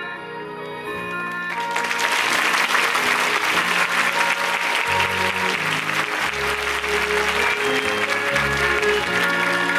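Theatre audience applauding over the musical's curtain-call music, the clapping swelling about two seconds in.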